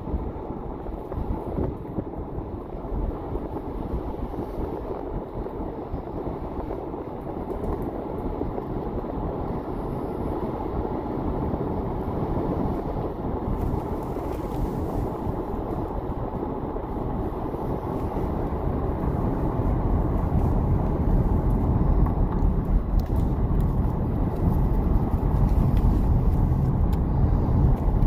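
Road noise and engine rumble of a moving vehicle heard from inside it, a steady low rumble that grows louder through the second half.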